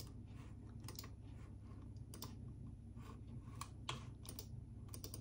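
Faint keystrokes on an Apple Magic Keyboard: a few single taps spaced out, coming quicker near the end.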